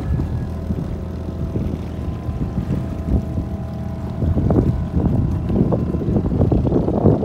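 Boat motor running steadily, pushing a folding boat across the water, with wind gusting on the microphone.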